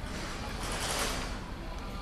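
Background noise of a covered shopping arcade: a steady low hum with a hiss that swells briefly about half a second in and fades by a second and a half.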